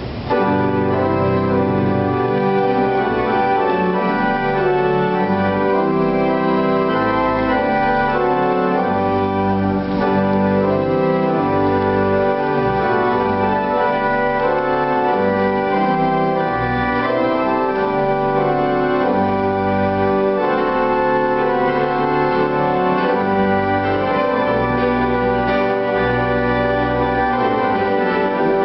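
Church organ playing held chords over a bass line that steps from note to note.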